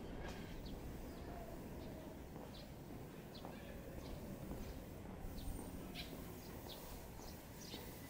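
Faint street ambience: a steady low hum with scattered short, high ticks.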